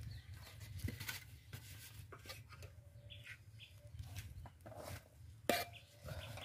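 Faint clinks and scrapes of a metal serving spoon against a metal curry pot and a styrofoam takeaway box while food is packed, with one sharper click about five and a half seconds in.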